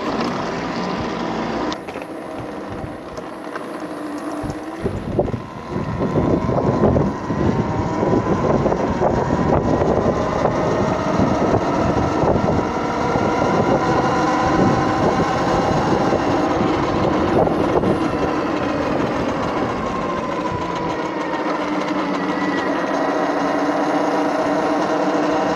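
Talaria Sting TL4000 electric motorbike riding, its motor whining and gliding up and down in pitch with speed. Underneath is a rough tyre rumble and rattle over paving stones, which gets louder from about six seconds in.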